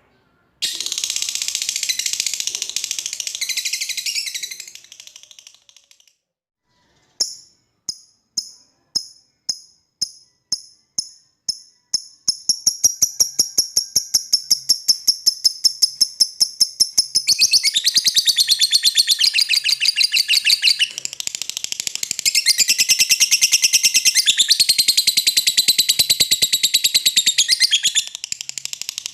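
Lovebird's long chattering 'ngekek' song. It opens with a burst of harsh chatter, pauses, then gives separate chirps that speed up into a rapid trill, which runs on into a long, dense rattling chatter.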